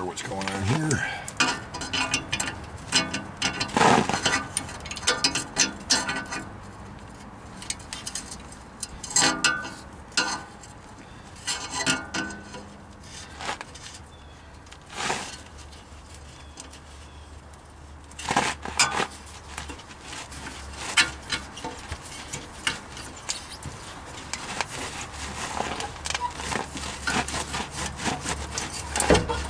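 The rusted stub of an exhaust pipe being twisted and pried with locking pliers where it meets the catalytic converter: irregular metal scraping, clicks and short squeals as the slit pipe is worked loose.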